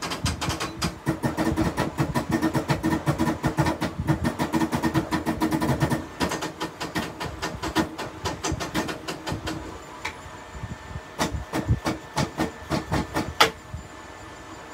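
FDM 3D printer's stepper motors and print head running in rapid, jerky short moves while tracing non-planar contour paths over a domed part. The moves come as a dense stream of clicks and buzzes at first, then thin out to scattered clicks, with one sharper click near the end.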